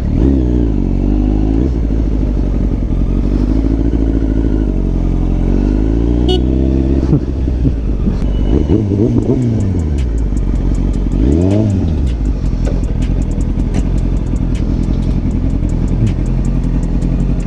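Motorcycle engine running under way, its revs climbing and falling back several times as it accelerates and eases off.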